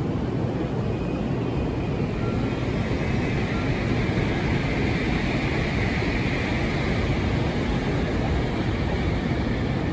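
Meitetsu 1000 series Panorama Super electric train pulling into a station platform: a steady rumble of wheels on rail, with a higher-pitched hiss building from about two seconds in and strongest near the end as the train comes in to stop.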